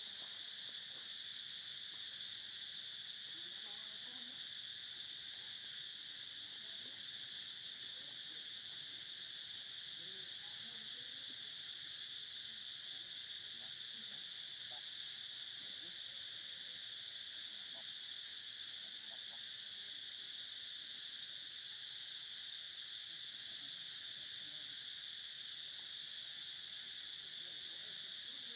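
A steady, high-pitched chorus of insects droning without a break.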